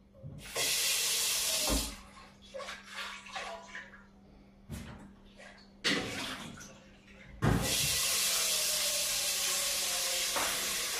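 Kitchen tap running into a stainless steel sink in two spells, a short one near the start and a longer one from about two-thirds of the way in, with knocks and clatters at the sink in between.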